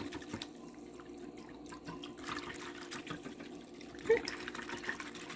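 A whisk stirring beef broth in a glass bowl: the liquid slops and swishes, with small clicks of the whisk against the glass. A brief louder knock about four seconds in.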